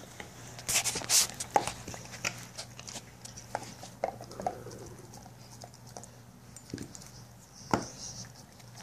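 Pit bull gnawing a dried lamb bone: irregular crunches and clicks of teeth on bone, densest about a second in, then scattered, with one louder crack near the end.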